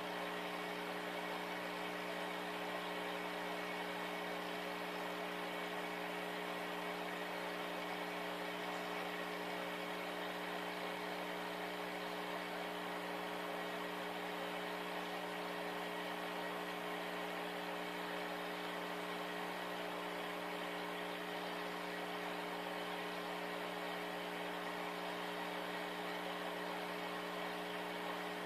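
Steady mechanical hum with a few constant tones over an even hiss, unchanging throughout.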